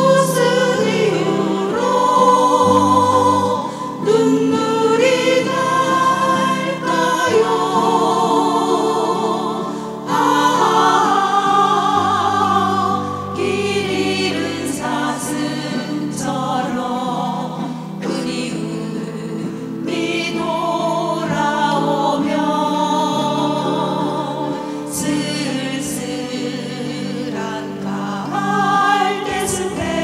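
A group of women singing a Korean folk song together with vibrato, accompanied by an ensemble of mandolins.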